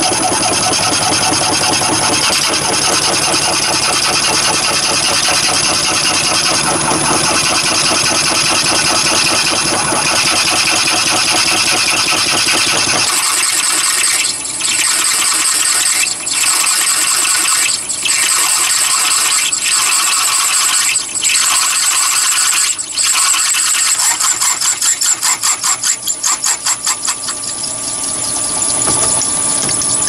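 Mini lathe running at about 300 rpm while a tailstock twist drill cuts into a spinning brass door knob, boring the hole out to tapping size for a quarter-inch BSP thread. About halfway through the low rumble drops away, and the cutting noise then breaks off briefly every second and a half or so, fluttering rapidly near the end.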